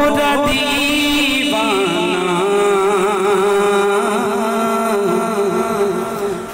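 A man singing a naat into a handheld microphone, drawing out long notes that waver in pitch in a chanting style.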